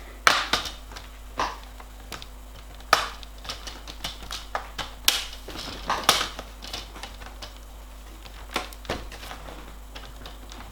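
Plastic screen bezel of an HP Pavilion G6 laptop being prised off by hand, its snap-fit clips popping loose one after another as irregular sharp clicks and snaps, thickest in the middle of the stretch.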